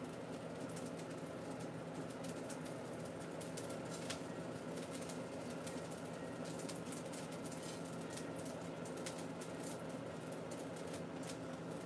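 Food sizzling and crackling in a frying pan on the stove, with many small irregular pops over a steady low hum.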